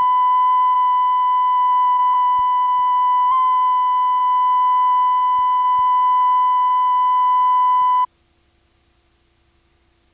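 1 kHz reference test tone played with the colour bars at the head of a VHS tape: one steady beep-like tone with a slight wobble about three seconds in. It cuts off suddenly about eight seconds in, leaving only a faint hum.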